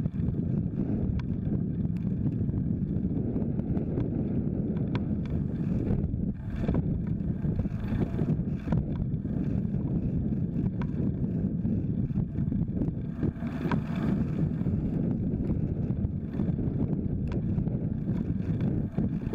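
Steady wind rumble on the microphone of a camera mounted low on a moving folding bike, mixed with road and tyre noise, with scattered light clicks and rattles.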